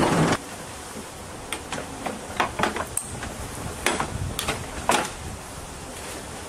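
Rail vehicle running along the track, cut off abruptly a moment in. Then a scatter of irregular sharp clicks and knocks over a faint outdoor background.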